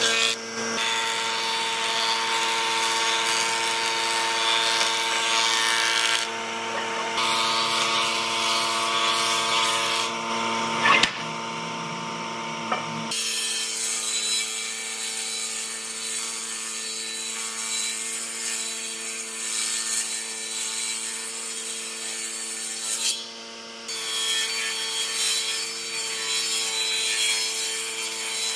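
Power woodworking tool running with a steady motor hum while cutting or abrading wood, its rasping hiss changing abruptly several times as the work shifts between shots.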